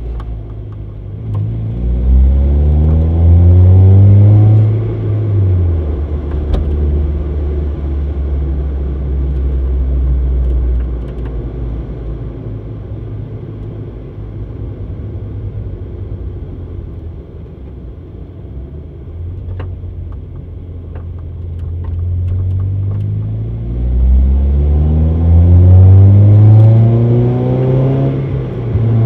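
A 1.8-litre Mazda Miata's four-cylinder engine breathing through a Fujitsubo RM-01A cat-back exhaust, heard close to the tailpipe. It pulls up through the revs in a rising tone about two seconds in, then settles into a steady, quieter cruise. It pulls up again, rising, from a little past the middle to near the end.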